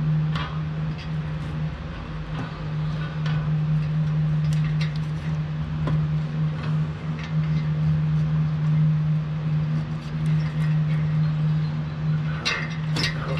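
A steady low machine hum, with scattered light clicks and rattles as a mower's control cable is pushed through a hole in its body panel; a quick cluster of clicks comes near the end.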